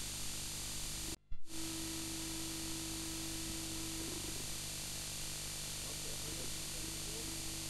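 Steady tape hiss from a VHS cassette played back on a Grundig VS200 video recorder. About a second in the hiss cuts out for a moment and ends in a sharp click. Then a steady tone of one pitch holds for a couple of seconds, and a few wavering notes follow near the end.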